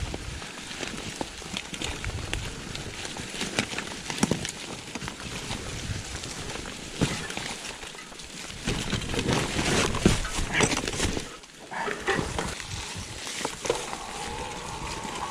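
Mountain bike riding down a rough dirt trail strewn with leaves. The tyres rumble and crunch over the ground, and the bike clatters with many short knocks and rattles. Near the end a faint wavering whirr comes in.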